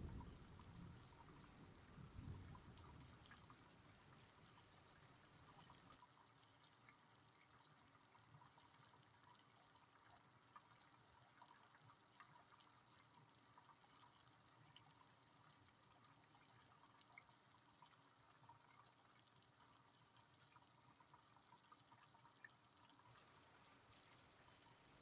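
Faint rain with scattered drips ticking, over a soft even hiss. A low rumble fades out during the first few seconds.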